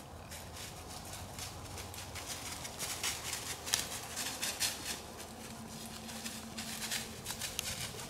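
Irregular rustling and crunching in dry leaves, growing busier about three seconds in.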